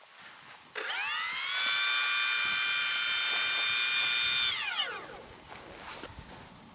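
Twin 80mm electric ducted fans of a Freewing A-10 RC jet spooling up sharply about a second in to a steady high-pitched whine. The whine holds for about three and a half seconds, then falls away as the fans spool down.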